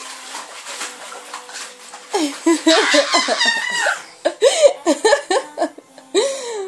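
Water splashing in a paddling pool, then from about two seconds in high-pitched laughter in quick repeated bursts, with further short laughs toward the end.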